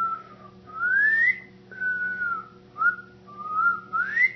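A person whistling a tune: a string of clear notes, some held and dipping slightly, others sliding upward, about one every second.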